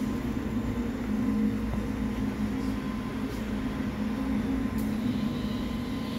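Powder coating booth equipment running, a steady low mechanical drone with a strong hum, with a few faint ticks over it.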